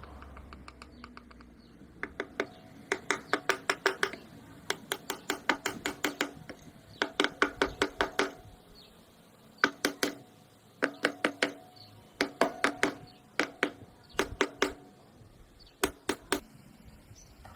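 Rapid metallic clicking or tapping in bursts of about a second, several clicks a second, with short pauses between bursts.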